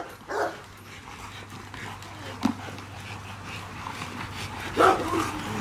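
Young Rottweilers playing rough at a hanging tire, making a few short dog sounds about half a second, two and a half seconds and five seconds in, the last the loudest.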